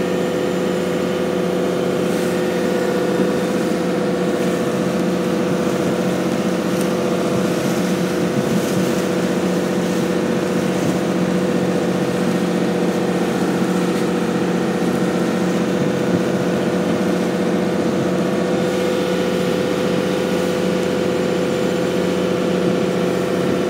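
A boat's engine running steadily while under way: a loud, even drone that holds one pitch.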